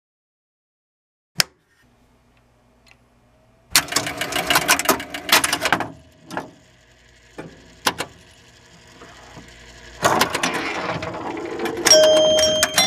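Electromechanical pinball machine (1976 Bally Captain Fantastic) clattering inside: a single click, a faint low hum, then bursts of rapid clicking from its relays, stepper units and score reels, about 4 seconds in and again about 10 seconds in. Music comes in near the end.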